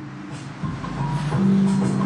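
Music: a song's intro with sustained tones, growing louder a little past a third of the way in as a deep bass comes in.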